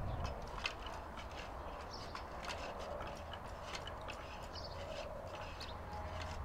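Outdoor ambience: a steady low rumble with short, sharp, high clicks and chirps scattered irregularly through it.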